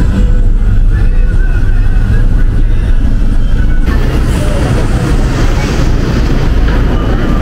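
Low rumble of a van's engine and road noise heard from inside the moving vehicle. About four seconds in, it gives way abruptly to a dense, steady hiss like wind on the microphone outdoors.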